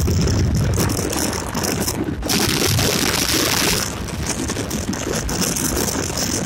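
Wind rushing over the microphone on a moving Yamaha Gladiator motorcycle, a steady dull rumble with hiss over the bike's road and engine noise. The hiss briefly cuts out about two seconds in.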